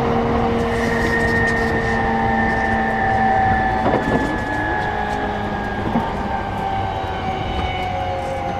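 Running sound inside a JR East E233-6000 series electric train: the rumble of the car with the traction motors' whine in several tones, slowly falling in pitch as the train loses speed.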